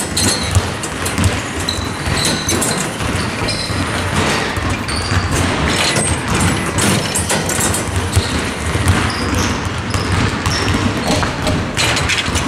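Echoing basketball-gym noise: basketballs bouncing on the hardwood floor over and over, with short high squeaks of sneakers on the court.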